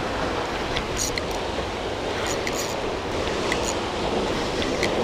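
Sea surf washing against rocks, with a steady rumble of wind on the microphone and a few faint, scattered ticks.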